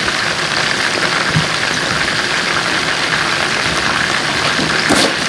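Bone-in, skin-on chicken thighs sizzling in hot oil in a skillet, a steady dense frying hiss as the skin crisps, with a short louder crackle near the end.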